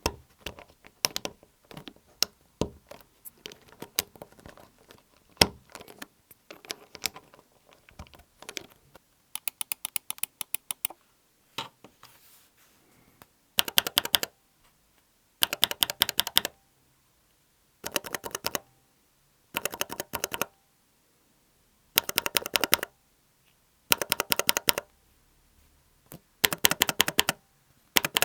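Keycapped Akko mechanical switches in a switch tester being pressed, clacking. For the first several seconds the presses are scattered single clicks; from about halfway they come in bursts of rapid presses, each about a second long, roughly every two seconds.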